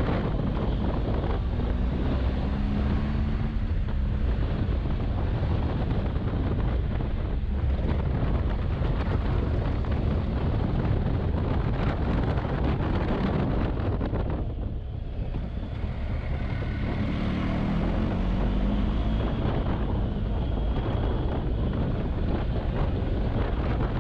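Heavy wind buffeting the microphone of a big twin-cylinder adventure motorcycle under way, with the engine note faintly rising and falling underneath. The wind eases briefly about fifteen seconds in.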